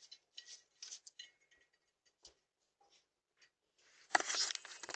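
Faint scattered clicks and ticks, then about four seconds in a louder scraping rustle lasting nearly a second.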